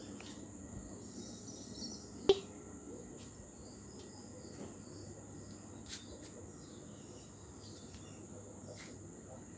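Insects trilling in a steady high chorus, with faint scattered ticks and one sharp knock about two seconds in.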